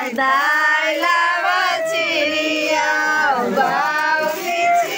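Women singing a traditional wedding folk song together, with long, high, drawn-out sung lines.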